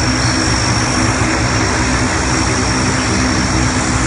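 Lockheed C-130 Hercules's four turboprop engines running at close range: a steady, loud propeller drone with a thin, steady high whine over it.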